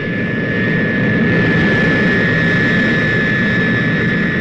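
Tu-95 bomber's turboprop engines at full power on takeoff: a steady, loud engine rumble with a high, steady whine over it.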